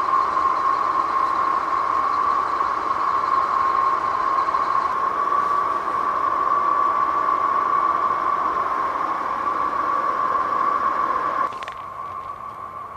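Steady machine noise with a high, even whine. About eleven and a half seconds in it drops suddenly to a quieter, similar noise.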